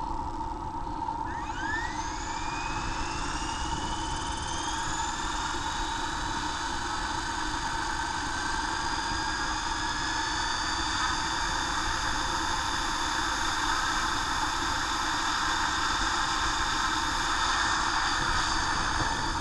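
Electric Hurricane 500 RC helicopter spooling up from a standstill: its brushless motor and gear-drive whine rises in pitch from about a second in, levels out after a few seconds, and then holds a steady high whine as the rotor turns at speed.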